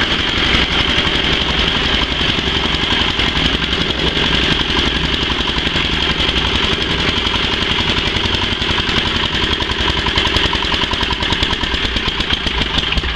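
Engine-driven coffee bean washing machine running steadily while loaded with coffee beans, a constant engine drone with a fast, even rattle.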